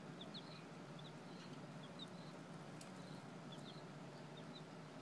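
Young chickens peeping faintly: a dozen or so short high peeps, scattered irregularly, over a faint steady low hum.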